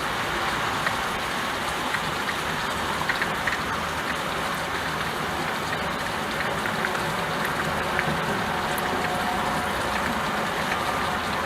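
Steady rain falling on window glass, with individual drops ticking now and then.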